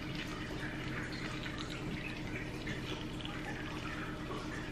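Shrimp sizzling gently in a nonstick frying pan on a gas burner as they are turned with metal tongs; the pan is not yet fully hot. A steady low hum runs underneath.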